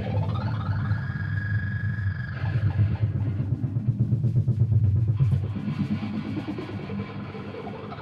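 Noise music from guitar effects pedals: a dense low drone, with a pitched tone sliding up about a second in, holding, then cutting off, and another upward slide near the end.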